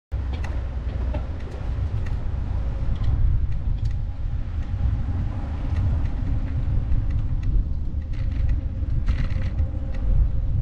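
Wind rumbling and buffeting on a moving action camera's microphone, with scattered light clicks and rattles.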